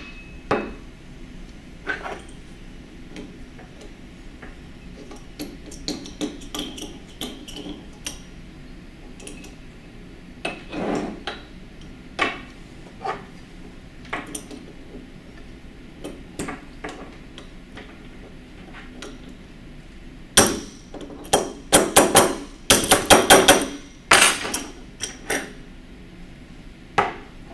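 Ball-peen hammer tapping metal on metal to drive a stuck part off a shaft of a 1920s Monroe mechanical calculator, with the clinks of tools being picked up and set down. Scattered single taps and clicks, then a quick run of harder taps about twenty seconds in.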